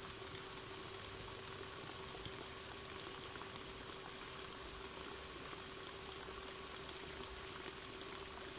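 Faint steady outdoor ambience: an even crackling hiss with a steady low hum underneath.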